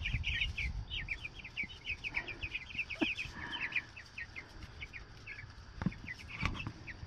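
A flock of three-week-old meat chicks peeping: a constant stream of short, high, downward-sliding peeps, several a second.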